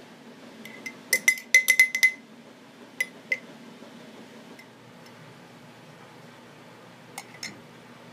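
Metal wire whisk clinking against the inside of a glass mason jar while stirring pulp: a quick run of about eight clinks about a second in, two more around three seconds, and another pair near the end.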